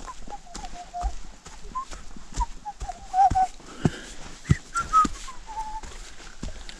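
A person whistling a simple tune in short phrases, with footsteps on a dirt forest trail thudding about once a second.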